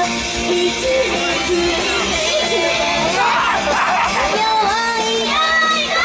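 Live J-pop idol song: female vocals singing over an upbeat pop backing, played loud through the hall's sound system.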